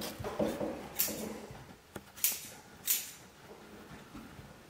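Scissors cutting the thin ladder cords of a faux wood blind and the cords being pulled free: a few short, hissy snips and a light click.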